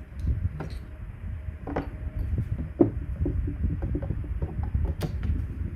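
Scattered clicks, taps and knocks of metal parts being handled as a Holley four-barrel carburetor is taken apart, its rear fuel bowl coming off, over a low rumble of handling noise.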